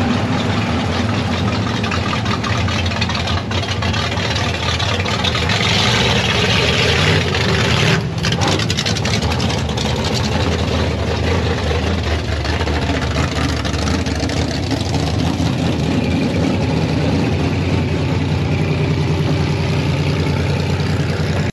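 A vehicle engine running at a steady, even speed close to the microphone.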